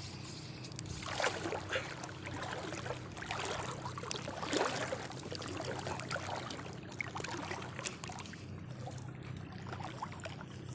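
Water trickling and lapping, with irregular rustling and scraping handling noise, loudest in the first half, over a faint steady low hum.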